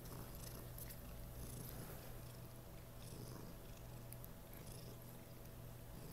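Domestic cat purring steadily and softly while being stroked, with a few faint ticks over the purr.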